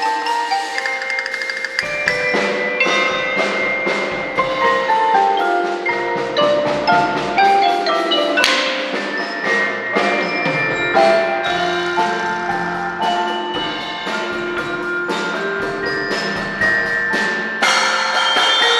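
A percussion ensemble playing a melody on tuned mallet instruments: many quick, ringing pitched notes over a few low bass notes. A crash cuts through about eight and a half seconds in.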